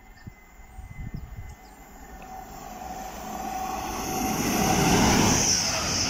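Express passenger train approaching and running through the station at speed: a rising rush of wheels on rail with a high hiss, loudest about five seconds in as it passes close by. A thin whine sounds ahead of it as it approaches.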